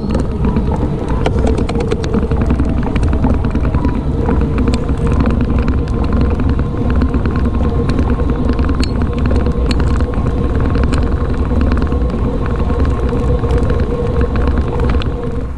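Himiway Cruiser electric bike being ridden: a steady rumble of wind and tyres on the road with a steady whine and many small scattered ticks over it.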